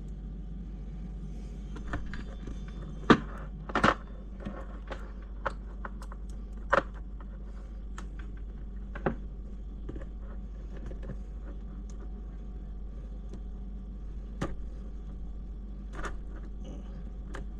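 Scattered clicks and taps of small plastic and metal RC crawler parts and screws being handled and fitted by hand, over a steady low hum. The loudest clicks come about three and four seconds in and again near seven seconds.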